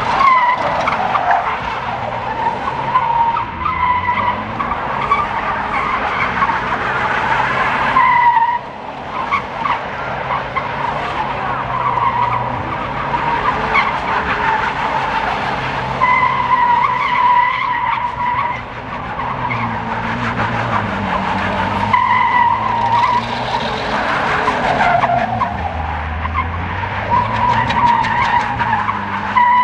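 A drifting car's tyres squealing in repeated long screeches, with the engine revving underneath.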